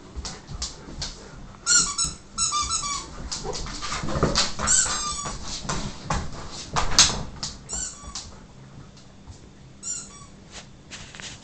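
Rubber squeaky toy squeaking in short bursts, about five times, amid Siberian huskies whimpering and scuffling, with many sharp clicks and knocks.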